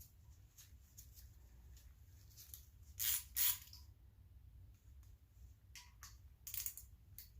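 Short metallic scrapes from hand work on a small-block Chevy engine during teardown, two close together about three seconds in and another near the end, over a low steady hum.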